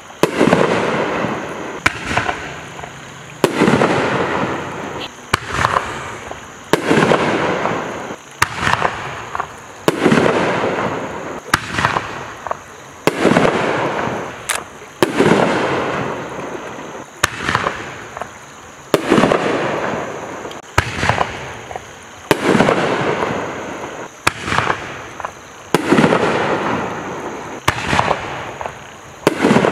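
Consumer artillery shells (Magnus Rainboom Shells) fired one after another from a launch tube and bursting in the air. A sharp bang comes about every one and a half to two seconds, each trailing off before the next.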